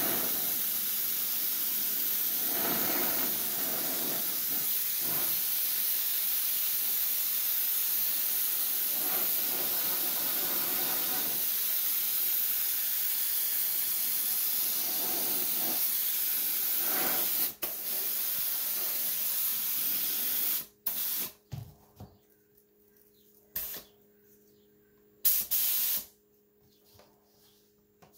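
Gravity-feed spray gun hissing as it sprays paint onto an RC car body. It runs as one long continuous spray with a brief break about two-thirds in, stops, and then gives a few short bursts near the end.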